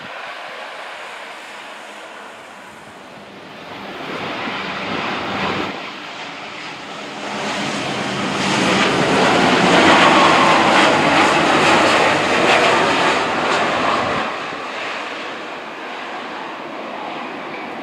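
Boeing 787 Dreamliner's jet engines on landing: the noise of the airliner on final approach builds to its loudest as it passes close, then drops away about fourteen seconds in around touchdown, leaving a lower steady rumble as it rolls down the runway.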